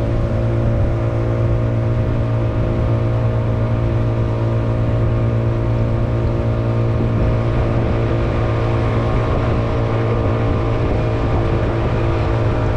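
Vehicle engine running at a steady speed: a constant drone whose pitch does not change.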